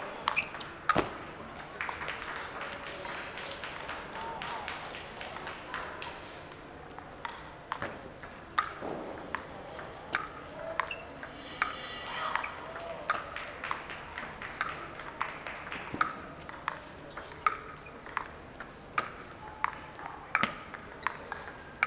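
Table tennis rallies: a celluloid ball clicking sharply off sandpaper paddles and the table in quick back-and-forth runs, with short pauses between points.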